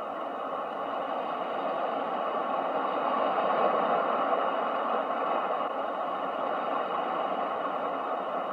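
Ocean waves: a continuous rush of surf that swells to a peak about halfway through, then slowly eases off.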